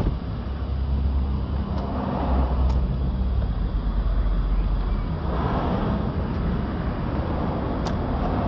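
Low, steady vehicle rumble, heaviest in the first five seconds, with a few light clicks as the plastic door trim panel is handled.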